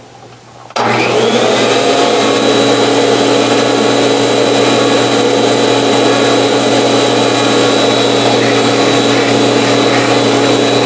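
A 1952 Electrolux Model XX vacuum cleaner is switched on under a second in. Its motor spins up briefly, then runs steadily with a low hum and a high whine.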